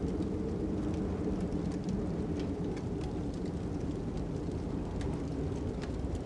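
Fire crackling, with irregular sharp snaps over a steady low rumble of wind.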